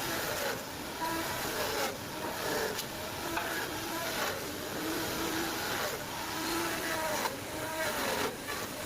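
Electric power tool running as it cuts a groove in wood, its motor pitch dipping and recovering over and over under the load of the cut.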